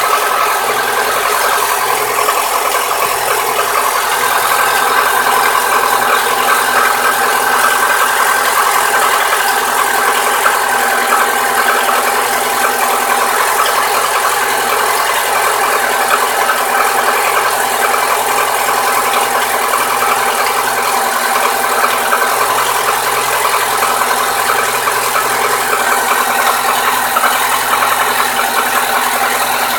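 Lada Niva 21214's 1.7-litre four-cylinder engine running steadily with a fast, even ticking knock over the engine noise. The owner localises it to the No. 4 cylinder on the manifold side and hears it only while the engine is cold, gone once it is warmed to 70–80 °C.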